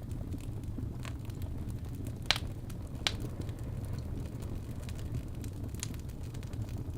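Wood fire crackling in a fireplace, with a few sharp pops, the loudest two near the middle, over a steady low rumble of wind.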